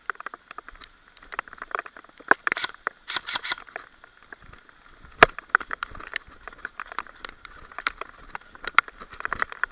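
Footsteps crackling and rustling through brush in irregular clusters, with one sharp click about five seconds in.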